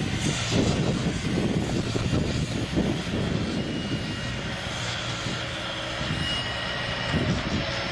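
Steady drone of a heavy engine running at an even speed, with a faint steady high whine over it.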